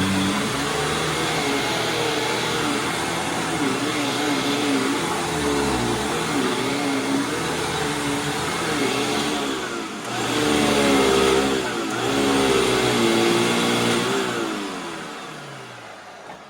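Hoover WindTunnel Supreme upright vacuum cleaner running on deep-pile carpet, its motor pitch wavering up and down as the load changes. Near the end the motor winds down, falling in pitch and fading.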